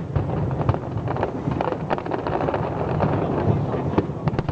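Fireworks display going off: a dense run of sharp crackling pops over a continuous low rumble of booms.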